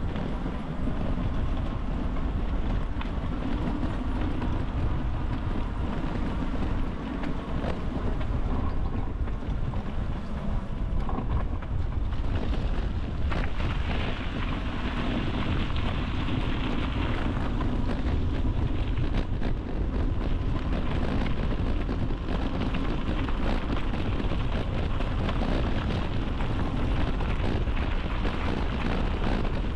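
Wind buffeting the microphone over the steady noise of a bicycle being ridden along the trail, its tyres rolling on the path surface.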